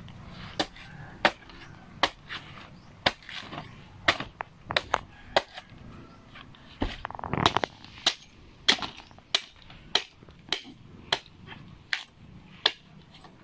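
Machete chopping the thick husk off a young green coconut: a steady run of sharp chops, about one every half second to second.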